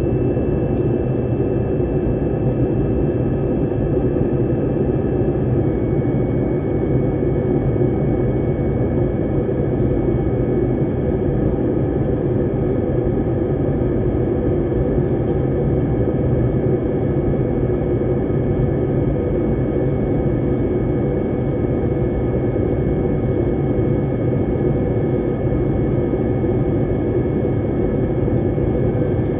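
Jet airliner cabin noise in flight: a steady, loud engine and airflow drone heard from inside the cabin. A thin high whine rides on top and drops slightly in pitch about five or six seconds in.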